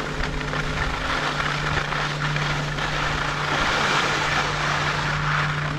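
Skis gliding and scraping over packed snow: a steady hiss that swells about halfway through and eases near the end, over a steady low hum.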